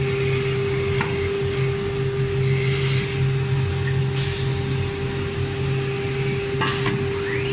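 ATC CNC router spindle running with a steady high whine while routing a wooden door panel, over a low machine hum, with a few short knocks.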